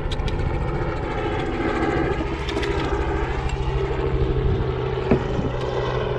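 A motor running steadily with a droning hum: a strong low tone with several higher tones stacked above it, wavering slightly in pitch partway through.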